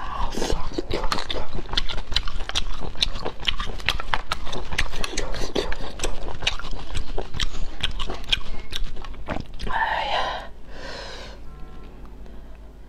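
Mouth sounds of eating cooked snails: rapid wet smacking, slurping and chewing, with many sharp clicks. About ten seconds in there is a short vocal sound, and then the eating noises fall away.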